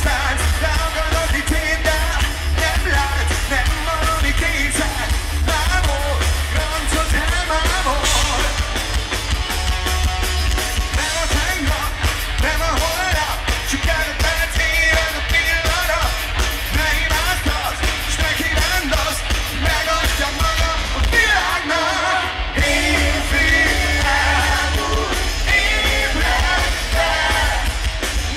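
A rock band playing live with a lead singer and heavy bass, heard from the crowd on a phone's microphone. The music thins out for a moment about three-quarters of the way through, then comes back in full.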